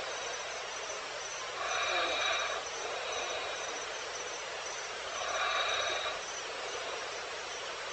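Evening wild-habitat ambience: a steady high-pitched chirring runs throughout, and an animal call with several pitched bands repeats twice, about three and a half seconds apart. No lion roar is heard.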